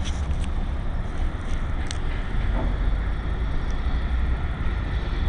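Steady rumble of a Baja Motorsports SC50 50cc scooter, heavy in the low end with wind on the microphone, and a few faint clicks.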